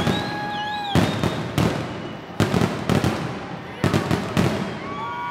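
Aerial firework shells bursting in a finale barrage: about eight sharp booms in quick succession, half a second to a second apart. A high whistling tone sounds over the first second and again near the end.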